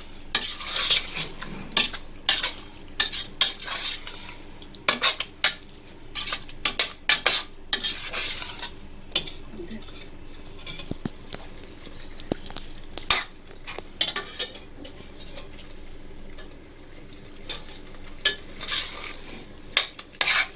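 A spoon stirring chicken in masala in a metal pan, with frequent clinks and scrapes of the spoon against the pan over a faint sizzle.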